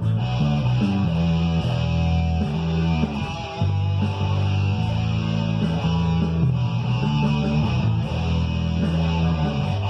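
Rock music: electric guitar played over a backing track with a bass line, the notes held and changing steadily.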